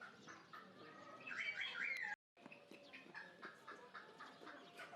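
Several birds chirping and calling in short, repeated notes, broken by a sudden gap of silence about two seconds in.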